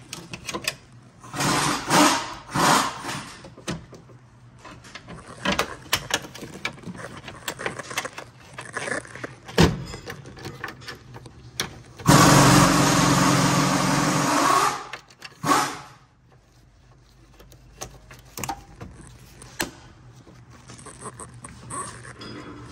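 Scattered sharp clicks and rustling: the plastic clips and wiring harness inside a car door being handled and pushed into place. A loud, steady mechanical noise runs for about three seconds just past the middle, then stops.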